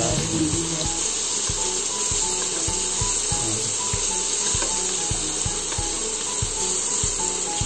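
Sirloin steak frying in butter in a pan as the hot butter is spooned over it, a steady sizzling hiss. Background music with a regular beat plays underneath.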